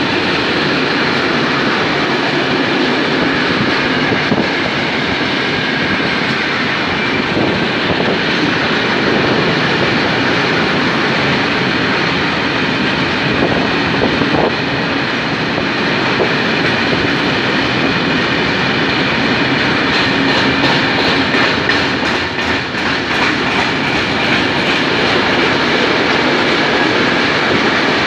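Mixed freight train's wagons rolling past at close range: a steady rumble of steel wheels on the rails. About twenty seconds in comes a quick run of clickety-clack as the wheels cross rail joints.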